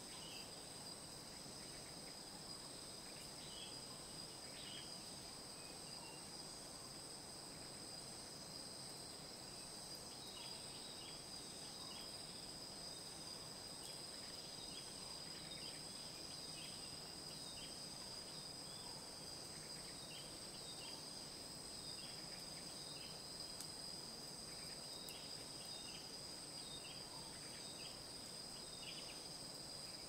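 Tropical rainforest insect chorus: a steady, unbroken high drone in two bands. Many short, high chirps dot it throughout, more thickly from about a third of the way in, over a soft background hiss.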